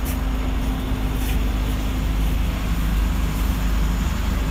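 Steady low rumble of city traffic noise with a faint steady hum.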